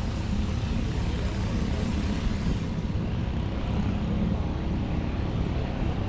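Steady low rumble of a running motor, with an even hiss over it.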